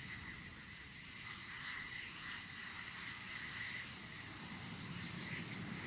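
Fighter jet engines running at taxi power: a steady low rumble with a thin high whine.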